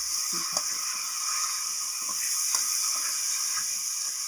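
Boiled meat pieces frying in hot oil with browned onions, a steady sizzle, with a few sharp clicks of a metal slotted spatula against the aluminium pot as it is stirred.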